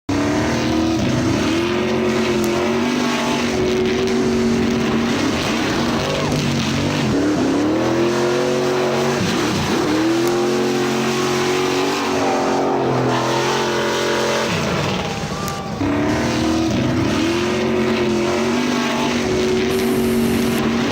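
Car engine sound effect, revving up and shifting through the gears: the pitch climbs and levels off, drops sharply at each shift, and climbs again, over and over.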